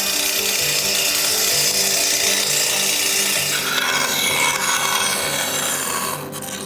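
A woodworking tool cutting or sanding wood, a continuous rasping noise that eases off about six seconds in. Soft background music with held low notes lies under it.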